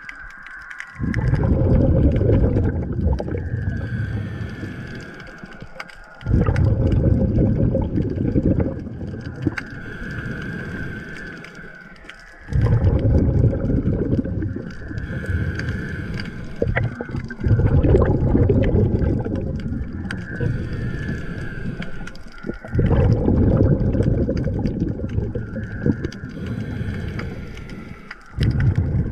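Underwater breathing of a diver: loud rumbling bursts of exhaled bubbles about every five to six seconds, each fading out, with a fainter hiss of inhaling through the regulator between them.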